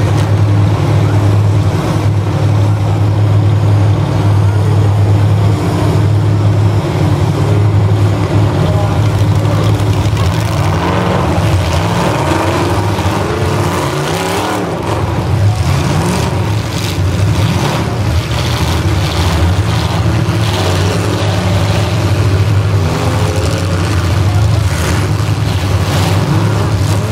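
Demolition derby cars' engines running and revving hard, with bangs of car bodies ramming each other, the bangs more frequent in the second half.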